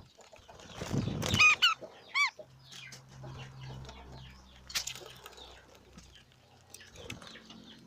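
Budgies chirping and chattering, with a loud run of sharp arched calls about a second and a half to two seconds in, among scattered short chirps and clicks.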